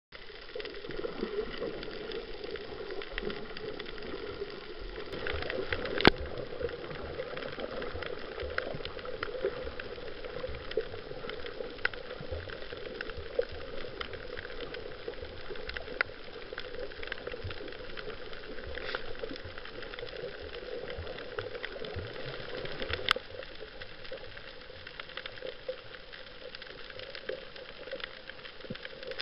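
Underwater ambience over a coral reef, recorded by a camera in a waterproof housing: a steady fizzing crackle of many small clicks. A sharper click comes about six seconds in and another a little before the end.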